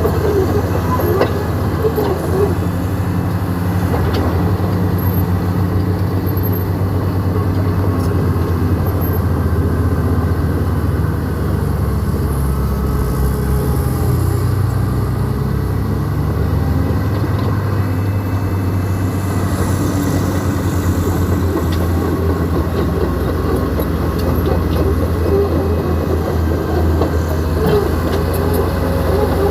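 Diesel engine of a New Holland 7D crawler bulldozer running steadily under load as it works the ground with its blade, its low note shifting a little in the middle, with light clanking from the machine.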